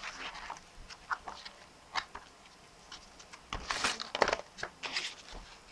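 Folded paper handled by hand: scattered light crinkles and taps, with a denser rustle about three and a half seconds in.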